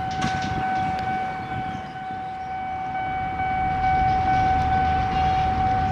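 A steady electronic warning tone, held on one pitch without a break, over the low rumble of diesel locomotives that grows a little louder partway through.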